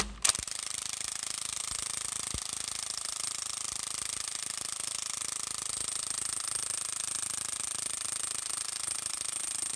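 Power impact driver hammering steadily as it drives a threaded sludge plug into the crankshaft web of a Jaguar E-Type engine. The plug is forcing its way into untapped threads. The sound runs for about nine seconds and stops just before the end, when the plug is seated.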